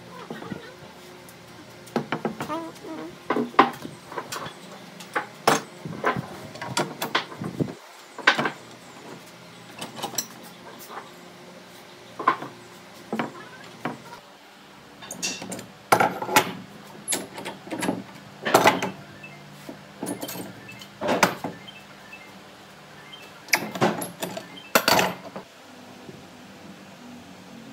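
Irregular knocks and clatters of wooden parts and hand tools being handled and set down, some with a brief ringing tail, in uneven clusters with short pauses between them.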